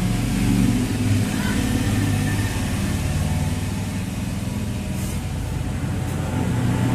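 Steady low mechanical drone, like a motor running, holding several low pitches at an even level.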